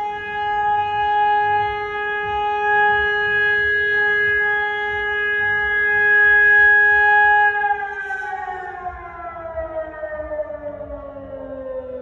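Civil defence siren sounding a steady all-clear tone, held level for about seven seconds, then cut off and winding down, its pitch falling slowly as it fades.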